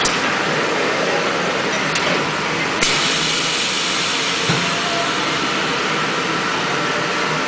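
High-frequency plastic welding and cutting press running through a cycle: a steady machine noise, a click as the sliding tray is pushed in, then a hiss that sets in sharply about three seconds in, and a short knock about a second and a half later.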